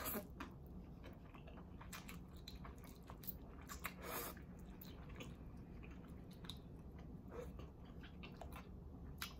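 A person chewing and biting food close to the microphone: irregular small wet mouth clicks and smacks, with a few louder bites.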